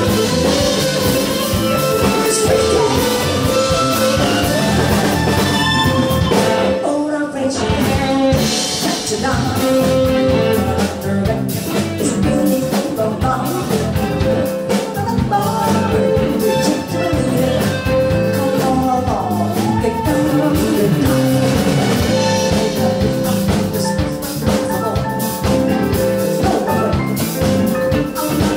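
Live band performing: a woman singing into a microphone over electric guitar and a drum kit, played loud.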